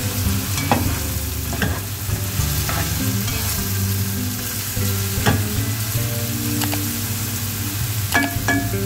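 Grated onion frying in hot oil in a nonstick pot, sizzling steadily while a plastic spatula stirs it round, with a few sharp scrapes of the spatula against the pan.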